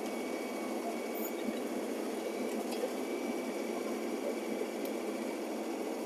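LS compact tractor's diesel engine running steadily while it moves brush with its front-loader grapple, with a few faint ticks.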